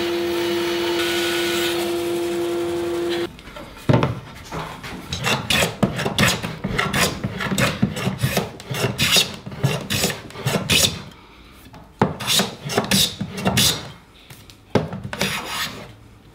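A power tool hums steadily at one pitch and shuts off about three seconds in. It is followed by hand strokes rasping across wood, about two a second, with a couple of short pauses.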